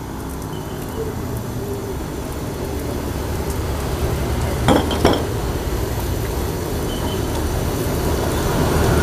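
Mortar and pestle mashing and stirring wet peanut sauce, with two sharp knocks a little past halfway, over a steady low rumble of street traffic.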